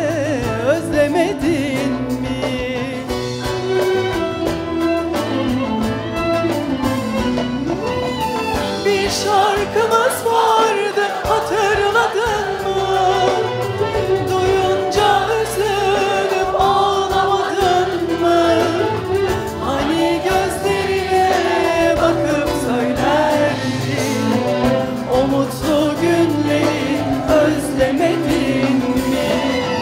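A female soloist sings Turkish art music (Türk Sanat Müziği) in long held, wavering notes. A choir and an instrumental ensemble that includes a clarinet accompany her.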